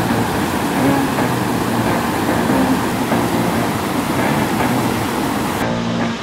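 Steady, loud rushing of whitewater rapids, water pouring over rocks; it cuts off abruptly near the end.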